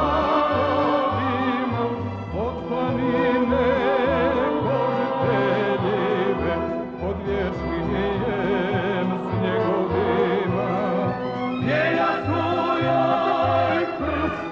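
Music: a slow Montenegrin song, a wavering melody with heavy vibrato over an evenly pulsing bass.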